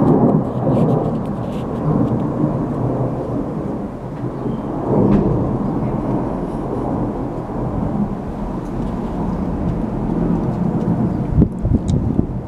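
Wind buffeting the camera's microphone: a loud, uneven low rumble that surges about five seconds in.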